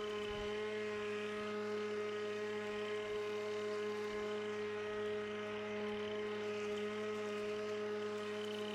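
Pellenc Rasion 2 Easy battery lawnmower running steadily, its electric motor and spinning blade giving an even, unchanging whine.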